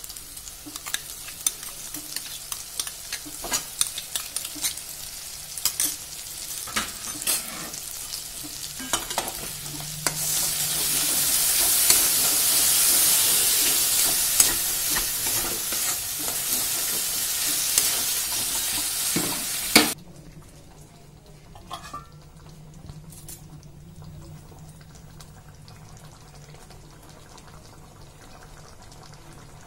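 Spiced masala with yogurt frying in a metal kadai, stirred and scraped with a metal spatula; the sizzle becomes a louder, hissier fry about a third of the way in. It stops abruptly about two-thirds in, leaving the quiet simmer of the curry gravy with a few soft clicks.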